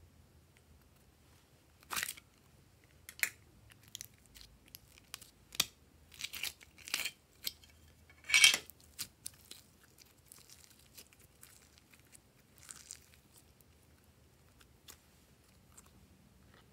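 Purple slime handled by hand: pulled from a plastic container and squeezed, giving a run of sticky crackles and pops. The sounds are loudest about eight seconds in, then thin out to faint clicks.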